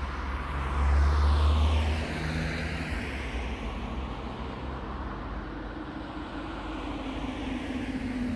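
A car drives past close by, its noise peaking about a second in and falling away. Road noise and a low steady hum then build toward the end as another car approaches.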